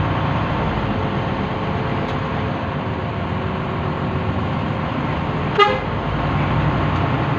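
Intercity bus engine running steadily at low speed, with one short horn toot about five and a half seconds in.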